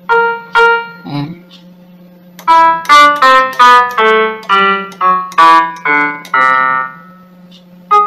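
Casio CTK-5000 electronic keyboard sounding single notes through its built-in speakers: two short notes at the start, one more about a second in, then a run of about a dozen notes one after another from about two and a half seconds in, each fading quickly. A steady low hum sits underneath. The sound shows the keyboard's audio working again after a faulty part was replaced.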